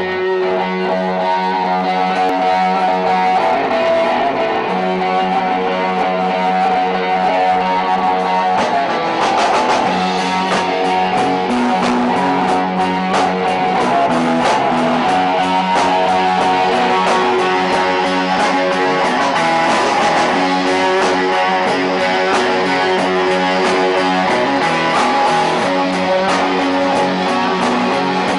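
Rock band music led by electric guitar playing sustained notes, with percussive hits, like drums, joining in about nine seconds in and continuing.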